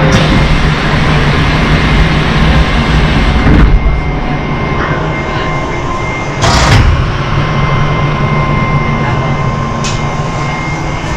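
Nagara 600 diesel railcar's engine running steadily, heard from inside the car. Two short door noises come about three and a half and six and a half seconds in as the sliding passenger door shuts.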